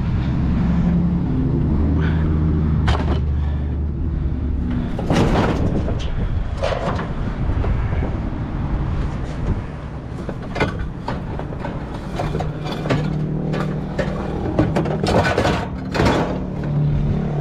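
A vehicle engine running with a low hum, with repeated knocks, clanks and scraping of scrap items being handled over it.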